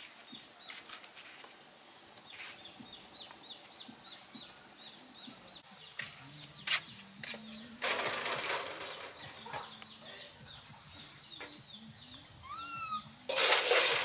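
Water poured from a plastic scoop splashing into a steel basin, starting near the end and the loudest sound here. Before it, faint rapid high chirping runs in the background, with a brief rising-falling animal call just before the pour.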